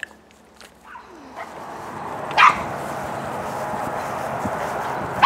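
A dog barks once, short and loud, about halfway through, over a steady hiss that builds in the background.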